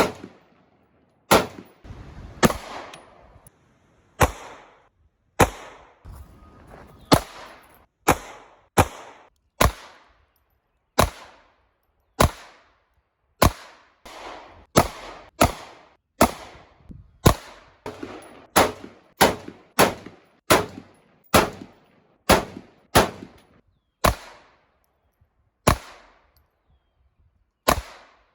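A long string of single gunshots, about thirty, fired one at a time with irregular gaps of half a second to two seconds, coming faster in the middle. Each shot trails off in a short echo.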